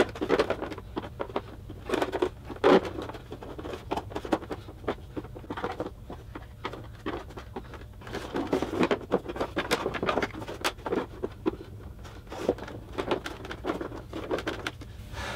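Screwdriver and plastic trim tool prying at the retaining tabs of a Mustang's rigid plastic grille: irregular plastic clicks, snaps and scrapes as the stiff clips are worked loose one by one. A steady low hum runs underneath.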